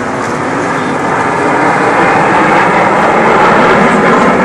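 Jet engine noise of Aermacchi MB-339 jets flying over in formation: a steady rushing sound that grows louder over the first two seconds, then holds.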